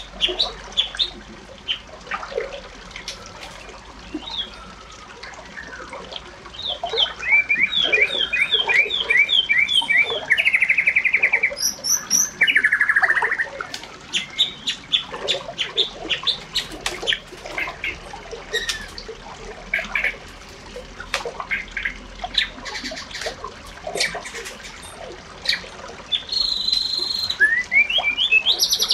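Birds chirping and calling, many short high notes, with a quick run of about eight repeated notes followed by a trill near the middle.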